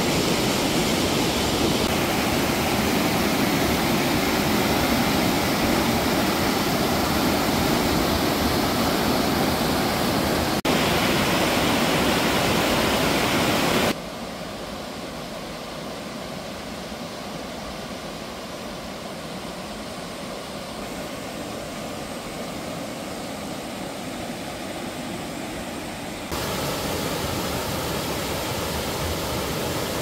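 Mountain stream water rushing over rock cascades and churning into a pool as a steady, even rush of whitewater. It drops quieter about halfway through and rises again near the end.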